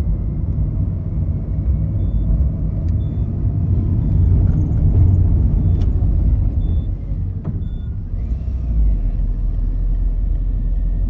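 Car audio system with subwoofers playing music loudly, the deep bass far louder than everything else.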